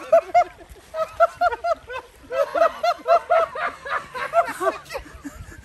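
Hearty male laughter: long runs of rapid, repeated ha-ha bursts, with a short break about two seconds in.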